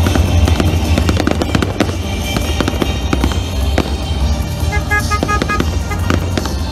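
Fireworks display: aerial shells bursting in a rapid run of bangs and crackles over a deep rumble, with music playing along.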